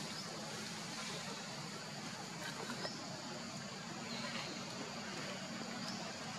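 Quiet outdoor ambience: a steady high-pitched drone with a few faint, short chirps or squeaks scattered through it.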